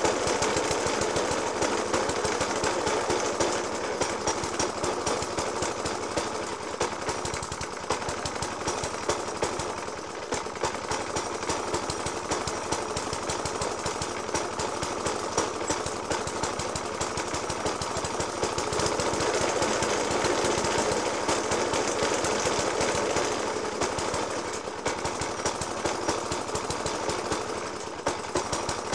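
Petrol engine of a Suffolk Punch 30S cylinder lawnmower idling roughly, a fast uneven firing broken by irregular louder bangs. This heavy banging on idle is still there after a new spark plug, a decoke and a cleaned Dellorto FCH 20 carburettor.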